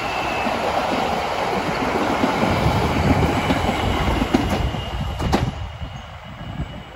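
Suburban electric train passing close by: steady rumble of wheels on the rails with a thin high whine, and a few sharp clacks about four to five seconds in as the last car goes by. The noise then falls away as the train moves off.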